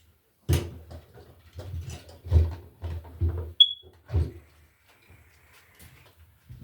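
Handling noises while working an old NM cable by hand: a run of irregular knocks, rubs and rustles over the first four seconds or so, with a single short high beep about three and a half seconds in.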